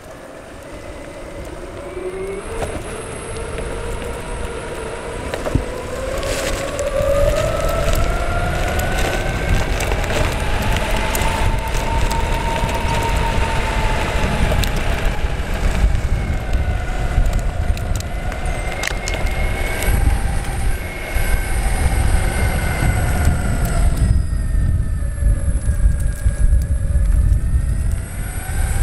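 Electric mountainboard's dual rear motors whining as the board accelerates, the whine gliding up in pitch over the first several seconds and then wavering with speed, over a low rumble of wind on the microphone and pneumatic tyres on asphalt. The whine drops away for a few seconds near the end, leaving the rumble, then returns.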